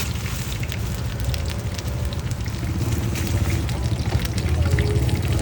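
Hot oil crackling as cakes fry, over a steady low street rumble.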